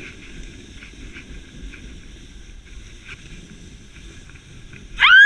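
Sled sliding down a snowy hill: a steady low scraping rumble with wind buffeting the microphone. Near the end a girl's loud, high-pitched scream starts, rising sharply in pitch and then held.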